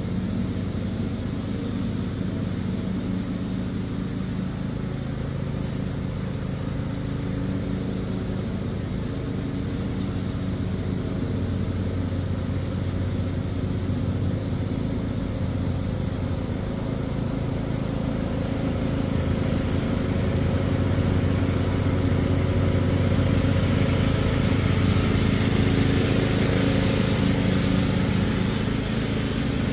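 Riding lawn mower's engine running steadily under load while mowing, growing louder in the second half as the mower comes closer.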